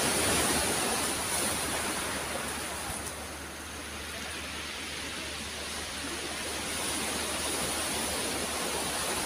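Steady rush of sea waves washing over a pebble beach, swelling a little in the first second and again after about seven seconds.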